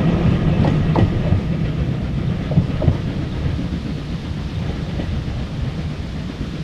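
A steam-hauled train rolling along the track: a low rumble with scattered clicks from the wheels over rail joints, slowly fading as it draws away.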